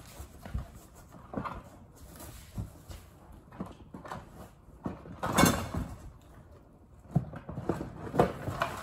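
Plastic battery chargers and tools being rummaged through in a cardboard box, knocking and rattling against each other irregularly, with the loudest clatter about five seconds in.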